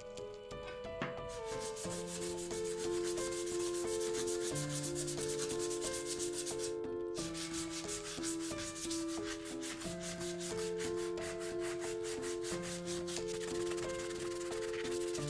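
Rapid rubbing strokes of sanding on an old knife, with background music of held notes underneath. The sanding stops briefly about seven seconds in.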